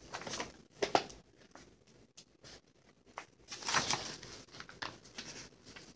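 Faint rustling and light taps of hands handling sticker sheets, with a quiet stretch in the middle and a cluster of rustles in the second half.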